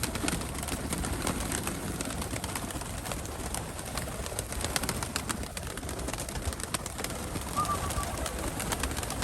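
A flock of Nikolaev pigeons cooing, with scattered sharp clicks throughout and one short high chirp about three-quarters of the way through.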